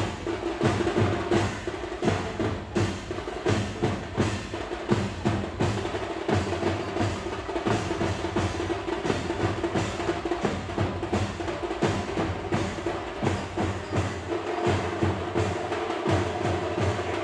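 Indian festive drums played in a fast, dense, unbroken rhythm of many strikes over a steady held tone.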